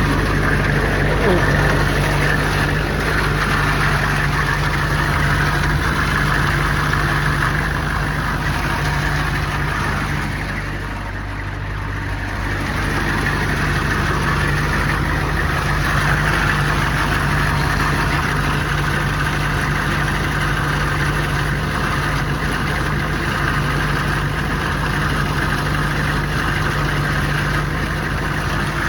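Engine of an old work vehicle running steadily, with a brief drop in level about ten seconds in.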